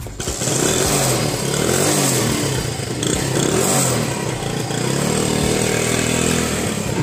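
Motorcycle engine running and revving, its note rising and falling again and again.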